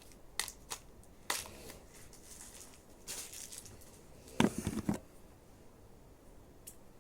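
Plastic toy packaging being handled and opened: rustling and crinkling with several small clicks, and a louder cluster of knocks and rattling about four and a half seconds in.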